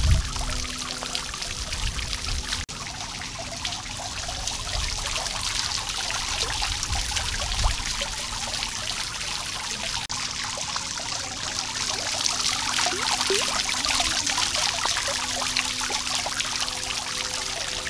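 Water from a backyard waterfall fountain falling and splashing in a steady, continuous pour.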